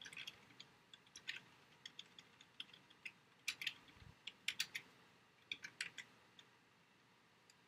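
Computer keyboard typing: faint, irregular keystrokes in small clusters, stopping shortly before the end.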